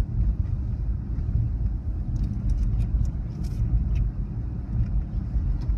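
Steady low rumble of engine and tyre noise, heard from inside the cabin of a moving vehicle while driving along a street.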